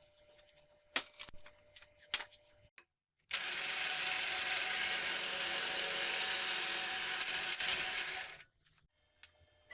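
A few sharp knocks of metal parts being handled, then a power tool runs steadily on metal for about five seconds and cuts off suddenly.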